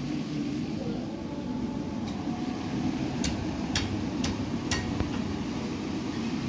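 Steady low rumble and murmur of a busy street market, with a run of sharp clicks or knocks about half a second apart in the middle.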